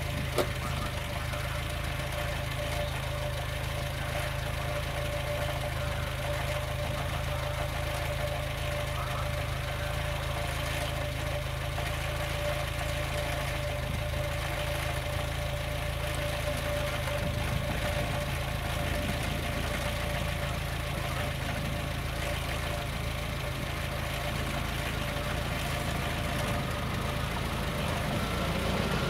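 Level crossing warning bell sounding continuously as one steady tone, over the low hum of an idling road vehicle waiting at the lowered barriers.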